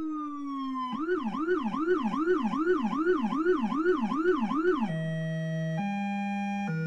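Whelen Howler low-frequency siren: a falling tone, then a fast up-and-down yelp at about two and a half sweeps a second. About five seconds in, the siren gives way to a simple keyboard melody of held notes.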